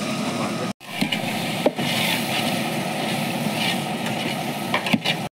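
Steady rushing noise of the stove and the frying pot, with a few scrapes of a long metal ladle against the aluminium pot as the masala is stirred. The sound cuts out abruptly for a moment about a second in and again at the very end.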